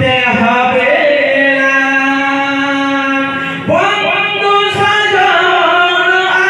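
A man singing a Bengali Islamic devotional song (gojol) into a microphone in long, drawn-out notes. A new phrase starts about three and a half seconds in.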